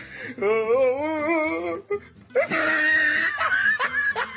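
A woman laughing and squealing: a drawn-out cry with a wobbling pitch, then a shrill, shrieking laugh about halfway through.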